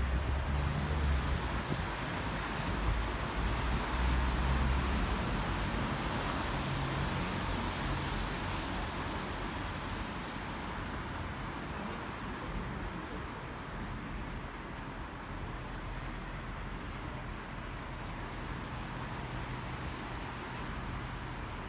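A motor vehicle driving past on a wet street, its engine rumble and tyre hiss loudest in the first few seconds and then easing off. Under it runs a steady hiss of rain and wet-road traffic, with a low hum.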